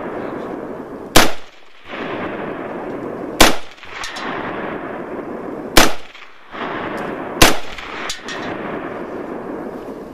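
Four single shots from a scoped AR-15-style rifle, fired one at a time at uneven gaps of about one and a half to two and a half seconds. Each sharp crack dies away within half a second. A steady background hiss drops out briefly after each shot.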